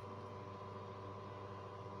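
Steady electrical hum and hiss with a faint constant tone, unchanging throughout.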